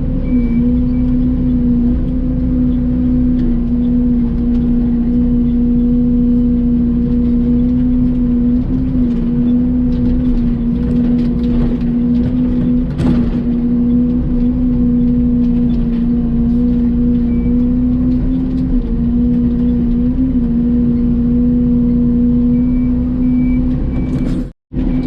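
Mini excavator engine running steadily at a constant pitch, dipping slightly a few times.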